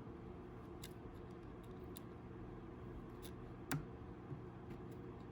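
A few faint, light clicks and taps as the iPhone 6 Plus LCD screen flex-cable connectors are pressed onto the board without snapping home, over a low steady hum. The sharpest tap comes about three-quarters of the way through.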